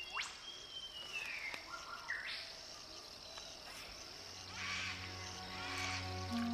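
Creek-side evening ambience: a steady high insect drone with several bird calls, a quick rising call near the start and a falling whistle about a second in. Soft music with low held notes comes in after about four and a half seconds.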